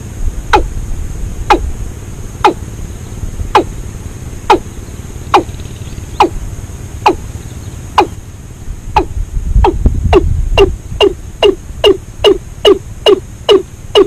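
Watercock calling: a series of short notes, each dropping sharply in pitch, about one a second at first, then speeding up to about two a second in the second half.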